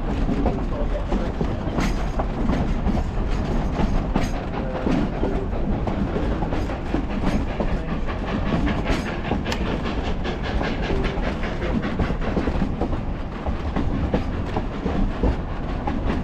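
Durango & Silverton narrow-gauge train rolling along the track: a steady rumble with many quick clicks and knocks from the wheels on the rails.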